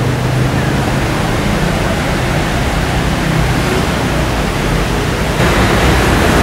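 Steady loud rushing noise with a low hum underneath, its character shifting slightly near the end.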